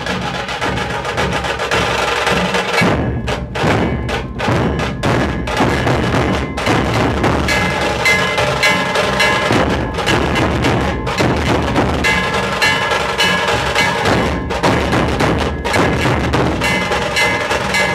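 Nashik dhol ensemble drumming: many dhols beaten in a loud, driving rhythm, with a steady metallic ringing above the drums.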